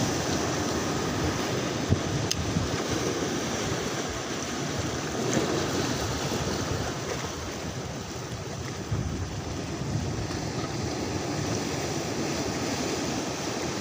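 Sea surf washing and breaking around shoreline rocks: a steady rush of waves that swells and eases, with wind on the microphone. A single sharp tap about two seconds in.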